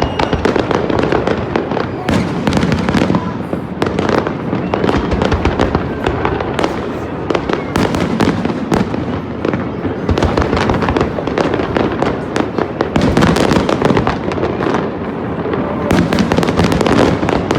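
Big fireworks display going off without a break: rapid overlapping bangs and crackles, packed densely together.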